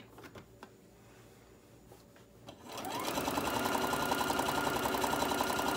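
Electric sewing machine starting up about two-thirds of the way in, quickly coming up to speed and then stitching steadily with a fast, even needle rhythm as it sews a seam through fabric and batting. Before it starts there are only a few faint clicks of the fabric being handled.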